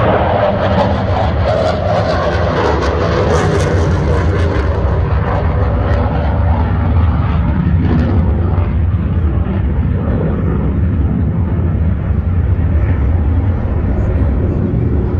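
Military jet flying over an airfield, its engine noise a loud, steady roar.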